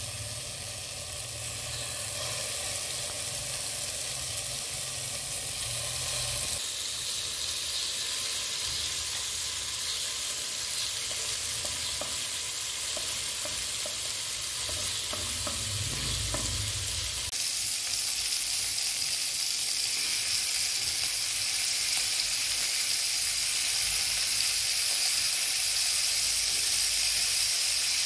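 Chicken skewers sizzling as they fry in hot oil in a nonstick pan, the sizzle growing louder as more skewers are laid in. A few light clicks midway.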